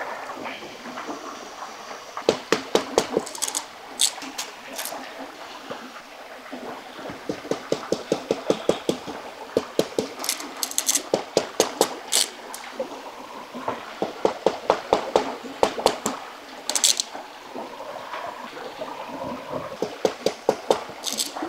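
Machete blade tapping and cutting into thin green bamboo sticks, in quick runs of sharp clicks with short pauses between, over the steady rush of a stream.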